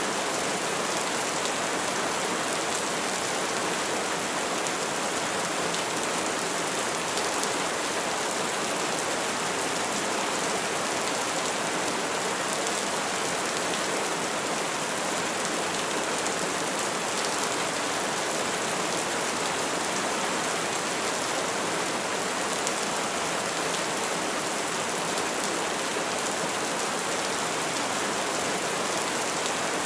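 Steady heavy rain falling, an even hiss with fine drop ticks, with no thunder in it.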